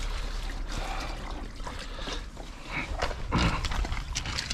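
Water pouring and trickling steadily out of a pool filter tank's open drain onto the ground as the filter is emptied. A few short knocks come near the end.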